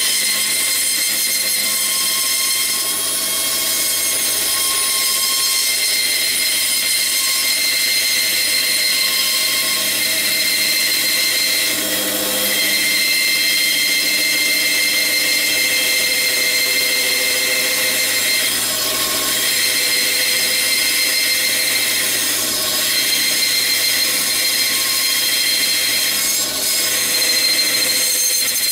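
Bandsaw running and cutting a thick block of wood along a curved outline: a steady high whine over the hiss of the blade in the wood, with a few brief changes as the cut turns.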